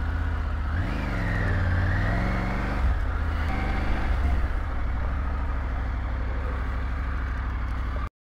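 Triumph Tiger 900's three-cylinder engine revved in short blips over the first few seconds, then idling steadily; the sound cuts off abruptly near the end.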